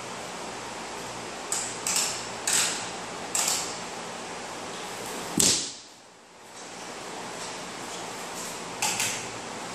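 A handful of short knocks and clatters, the loudest about halfway through, over a steady hiss of moving air; the hiss dips for about a second just after the loudest knock.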